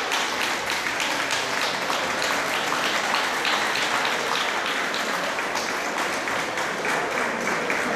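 Audience applauding steadily, many hands clapping without a break.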